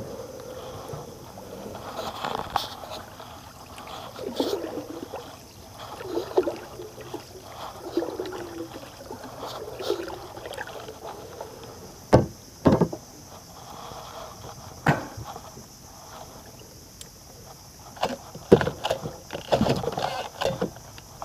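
Wooden paddle dipping and pulling through river water beside a small wooden boat, about one stroke every two seconds. A little past halfway come three sharp knocks, and near the end a run of rattling knocks.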